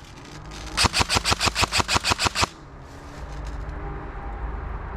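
A recreational game gun firing a rapid string of about a dozen shots, about seven a second, for a second and a half, then stopping.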